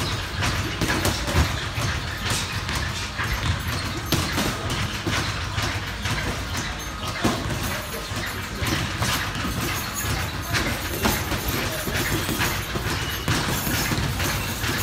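Boxing gym sparring sounds: irregular slaps and thuds of gloved punches and shoes scuffing on the ring canvas, over a steady low hum.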